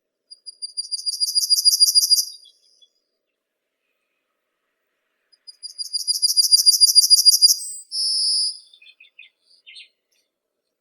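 A small songbird singing two trilled phrases, each about two seconds long, made of quickly repeated high notes at about six a second that swell in loudness. The second phrase ends in a short buzzy note and a few scattered soft notes.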